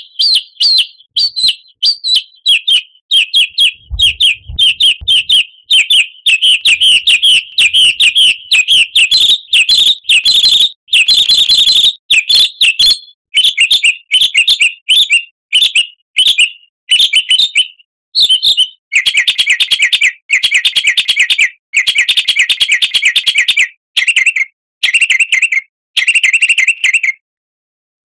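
Songbird chirping in quick, repeated bursts of high notes, each phrase cut off by a brief gap of dead silence. About two-thirds of the way through, the phrases turn longer and denser, sitting a little lower in pitch.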